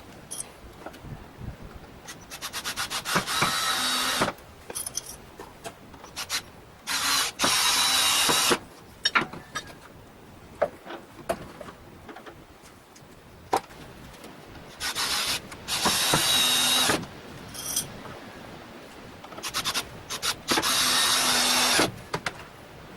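Diamond saw blade on a copying saw cutting into hard red porphyry in four short passes of one to two seconds each, with a whine through each cut and quieter clicks and knocks between them.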